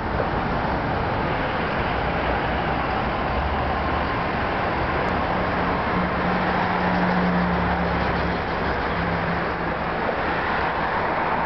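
Steady city road traffic, with a vehicle's low engine drone that swells in the middle and fades again.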